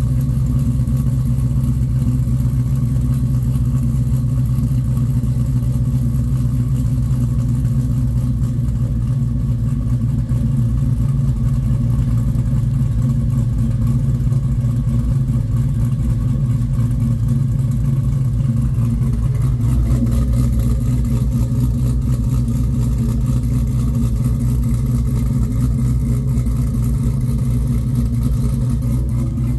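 Chevrolet pickup's cammed 6.0 V8 idling steadily after a remote start, a constant low exhaust rumble.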